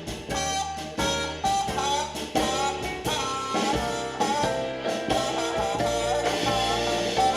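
A song with singing, instruments and a steady beat, played back through an Akkord 201 stereo amplifier and its loudspeakers and picked up by a camera's microphone.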